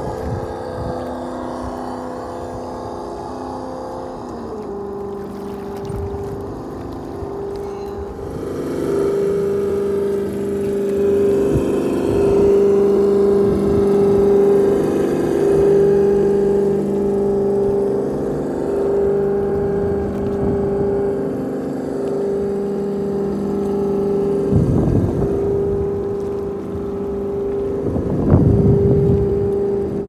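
Traxxas TRX-4 RC crawler's electric motor and gearbox whining at a steady pitch, which steps down slightly about four seconds in and then holds, over a noisy rush. Two short louder bursts of noise come near the end.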